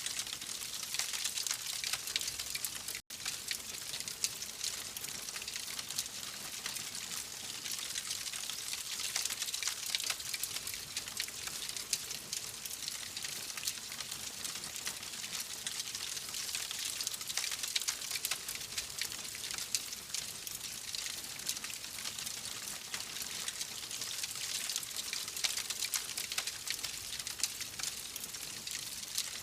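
Wood fire crackling and hissing steadily, a dense stream of small pops and snaps. It cuts out for an instant about three seconds in.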